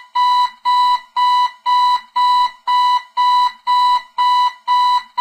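Digital alarm clock going off: a loud, single-pitched electronic beep repeating evenly, nearly two beeps a second.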